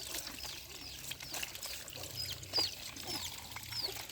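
A small bird repeating a short, high, down-slurred chirp, two to three times a second, over water trickling and a few light clicks.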